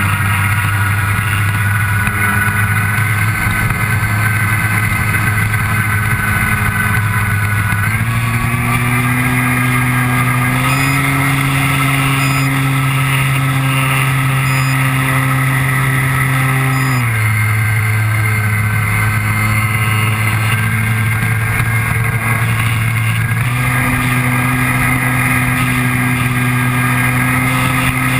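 RC model Cessna's motor and propeller running steadily, heard from a camera aboard the plane. Its pitch steps up about eight and eleven seconds in, drops about seventeen seconds in, and rises again about twenty-three seconds in, as the throttle is changed.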